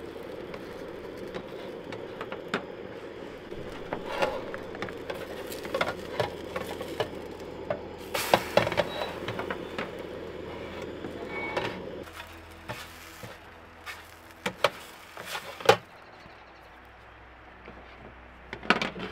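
Propane burner of a Jetboil camp stove running with a steady low rush under a frying pan, while a spatula scrapes and taps the pan as a pancake is turned. About two-thirds through, the burner sound stops, leaving sharp clicks and knocks of the spatula, pan and plate.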